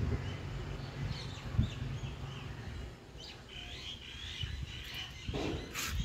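Small birds chirping in the background, the chirps growing clearer after about three seconds. A low rumble fades out over the first couple of seconds, and a brief whoosh comes shortly before the end.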